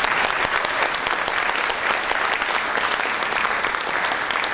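Audience applauding: many people clapping together in a dense, steady patter.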